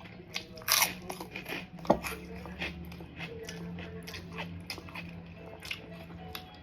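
Close-miked eating sounds: biting and chewing food, with many small wet mouth clicks and two louder crunchy bites, about a second and two seconds in.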